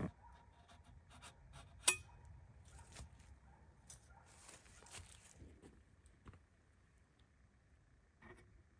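Faint knocks, clicks and rustles of hands working with tools and materials, with one sharp click about two seconds in, over a low outdoor rumble.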